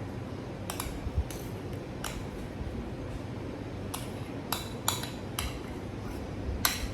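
Kitchen utensils clinking and knocking against a container, about eight sharp, irregularly spaced clinks, as shortening is added to the flour for the dough.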